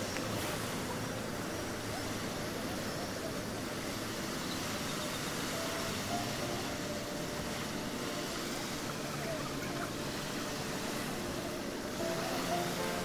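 Small waves washing onto a sandy shore from a calm sea, a steady hiss of surf.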